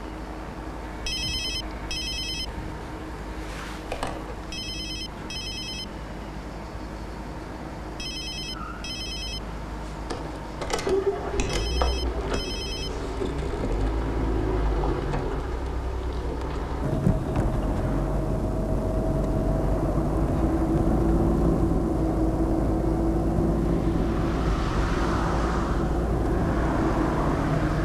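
A telephone rings in short double rings, four times over about twelve seconds. Then a car engine starts up and runs steadily as the car drives, getting louder.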